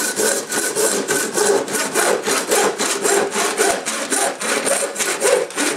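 Wide-bladed handsaw cutting through black ABS plastic pipe, quick even back-and-forth strokes at about four to five a second.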